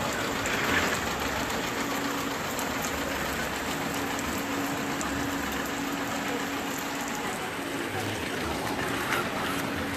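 Heavy rain falling steadily and pattering on surfaces. A faint steady hum runs beneath it.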